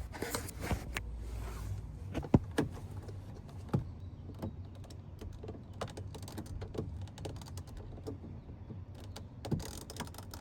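Irregular clicks and small knocks of plastic and metal door-panel parts being worked loose by hand, over a low steady hum. A sharper click comes about two seconds in and another near four seconds.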